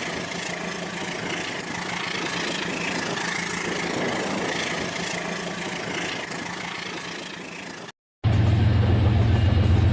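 Small electric motor of a Rail King battery-powered toy train whirring steadily; it breaks off about eight seconds in and comes back as a louder, lower steady hum.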